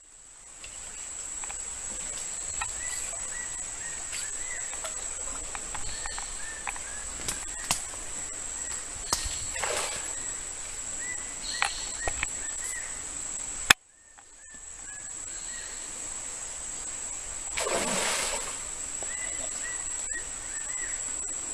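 A hooked fish splashing in a shallow stream, with two longer surges of splashing about nine and eighteen seconds in, over a steady high-pitched whine and repeated short chirps. The sound drops out abruptly about fourteen seconds in and fades back up.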